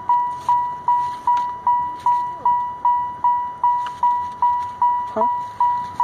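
A car's warning chime dinging over and over, a single tone repeated about two and a half times a second, each ding fading quickly before the next.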